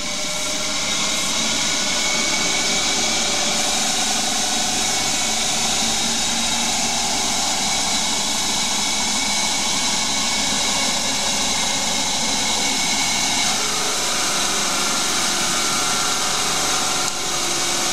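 Hercus small CNC lathe turning an aluminium blank: a steady machining whine with several held tones over a hiss, from the spindle and its DC motor, with the tool cutting. The motor is working at its full rated current on a deep roughing cut. The tones shift slightly after about thirteen seconds and the level dips a little near the end.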